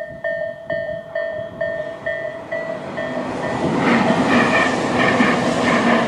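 Japanese railway level-crossing warning bell (Tobu 'sound A' electronic tone) dinging a bit over twice a second. From about four seconds in, a Tobu 500 series Revaty express train passes over the crossing at speed, wheels clattering rhythmically over the rail joints, and its rumble drowns out the bell.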